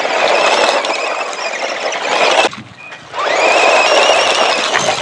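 Electric motor of a small RC monster truck whining as it pulls a rock-loaded trailer over gravel, over a hiss of tyres on loose gravel. About halfway through the sound drops away briefly, then the whine sweeps up in pitch as the truck speeds up again.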